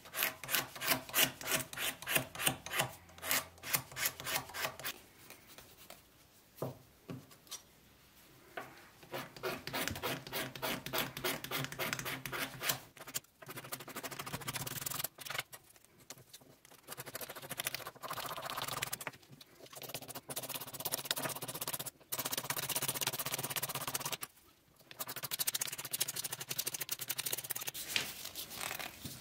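Razor blade scraping the surface off a wooden plane handle. It starts with quick, short strokes, about three or four a second, for the first five seconds, then runs in longer bouts of steady scraping broken by short pauses.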